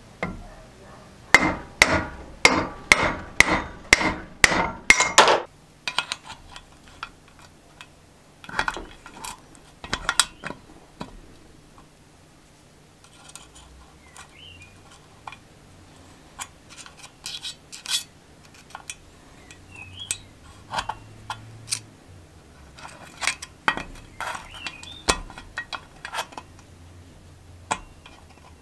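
About ten rapid, ringing metal hammer blows on a shaft held in a vise, working its ball bearing loose for replacement. Then scattered light metallic clinks and scrapes as a screwdriver pries at the valve springs inside the valve chamber of a Briggs & Stratton engine block.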